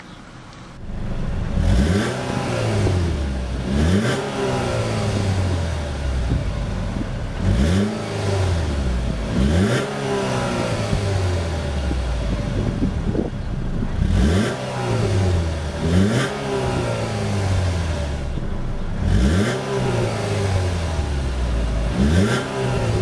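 2013 Chevrolet Malibu ECO's 2.4-litre four-cylinder engine being revved in quick blips while parked, mostly in pairs, each rev rising sharply and falling back to idle. The revving starts about a second in.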